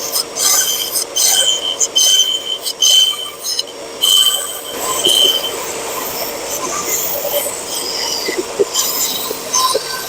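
Power saw cutting wood in short passes. A high-pitched squeal comes and goes in about half a dozen short strokes through the first half, then the cutting noise runs steadier.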